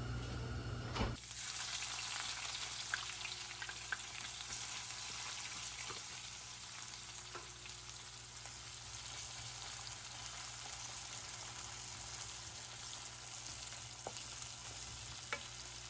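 Food frying in hot oil in a pan: a steady sizzle that starts suddenly about a second in, with a few light clicks of a utensil against the pan.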